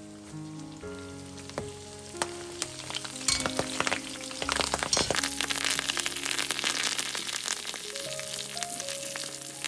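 Batter-coated eggplant strips deep-frying in a wok of oil, with a few sharp clicks. About three seconds in, the frying swells into a dense crackling sizzle as fresh basil leaves go into the hot oil.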